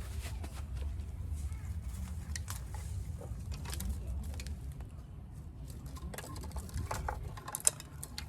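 A scattered run of light clicks and knocks over a steady low rumble, with one sharp click near the end.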